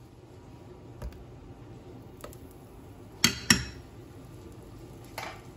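Glass pan lid and nonstick frying pan clinking and knocking as the lid is handled: a soft knock about a second in, two sharp ringing clinks a quarter-second apart just past halfway, and a lighter clink near the end.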